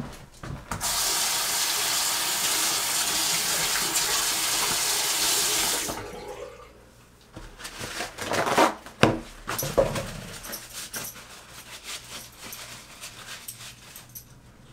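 Bathroom sink tap running for about five seconds, then turned off. Paper towel is then pulled from a roll with a few sharp crackles and rustled between the hands while drying them.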